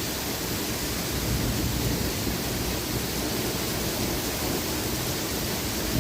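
Heavy rain pouring steadily in a thunderstorm, an even hiss with a low rumble underneath.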